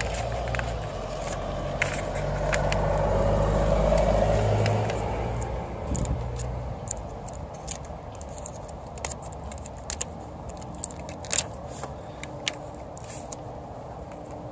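Clear tape being pulled from a handheld dispenser and sheets of printer paper being handled and pressed against a car body, making scattered clicks and crackles. In the first six seconds a passing vehicle's engine hum swells and fades.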